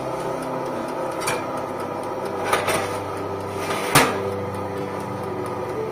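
Metal loaf pans clanking against the wire rack of a countertop toaster oven as the tray of batter-filled pans is slid in: a few sharp knocks, the loudest about four seconds in.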